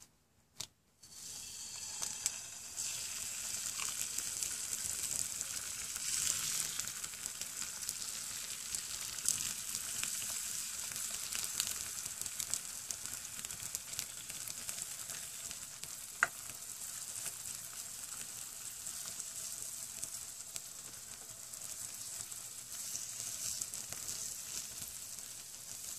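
Raw egg frying on the hot, carbon-crusted bottom of an upturned pot over a hobo stove: a steady high sizzle with small crackles and pops. It starts about a second in, after two short clicks as the egg is cracked.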